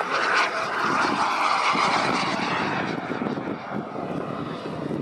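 Jetcat 160 model gas turbine of a radio-controlled Skygate Hawk jet in flight, a steady rushing jet noise. It is loudest for the first two or three seconds, then eases off a little as the jet moves away.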